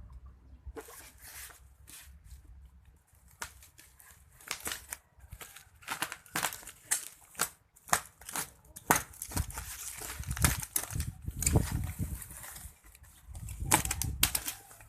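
Packaging being opened by hand: irregular tearing and crinkling of wrapping, with rustles and light knocks as the box contents are handled, starting about a second in and growing busier and heavier toward the end.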